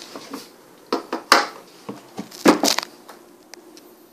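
Knocks and clatter of a small gray project box (an ultrasonic jump meter) and its cable being handled and set down on a tiled floor. Several sharp knocks, the loudest about a second in and again about a second later, over a faint steady hum.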